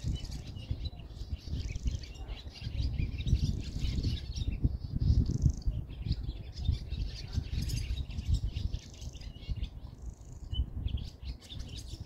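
Many small birds chirping and twittering continuously, over a low, uneven rumble.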